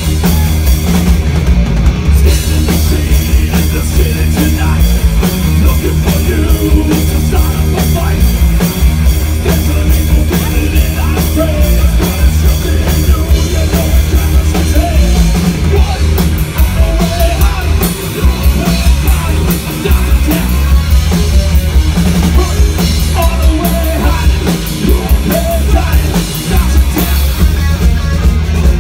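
Live heavy metal band playing loud: distorted electric guitars, bass guitar and drum kit, with a lead singer's voice over them through the middle of the stretch.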